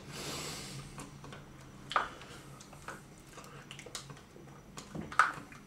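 Quiet eating sounds: plastic spoons clicking and scraping in plastic sundae cups as soft-serve is shovelled up, a handful of separate small ticks spread through, after a short hiss at the start.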